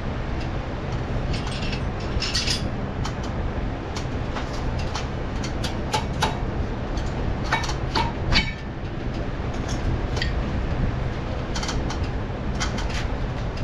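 Scattered light metallic clicks and clinks of brake pads and caliper hardware being handled and fitted, over a steady low rumble.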